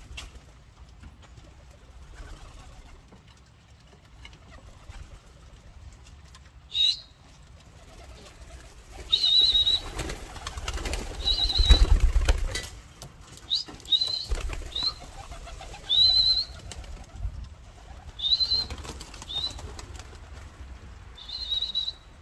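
English Tippler pigeons' wings flapping and clapping as the birds are thrown up and take off, loudest about ten to thirteen seconds in. A series of short, high whistled notes runs through the second half.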